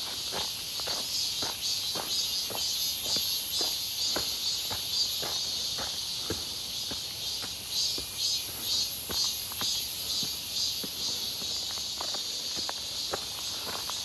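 Cicadas singing in chorus: a steady high buzz that swells and pulses in places. Footsteps crunch on a dry, leaf-covered dirt trail about twice a second.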